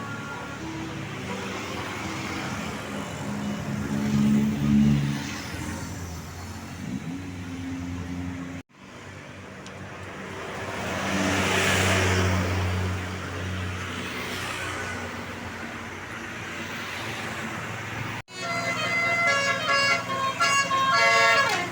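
Large tour buses on the road: engine running with low steady tones, one bus swelling louder and fading again as it drives past in the middle. In the last few seconds a multi-tone 'telolet' bus horn plays a quick run of changing notes.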